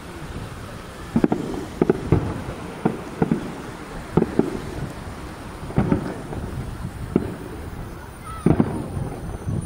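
Aerial firework shells bursting at a distance of a kilometre or two: an irregular string of booms, some coming in quick pairs, over a low rumble of wind on the microphone.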